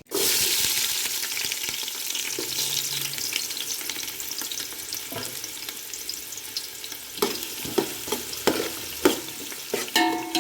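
Hot cooking oil sizzling loudly in a pan. The sizzle starts suddenly, then slowly eases. Several sharp knocks of a utensil against the pan come near the end.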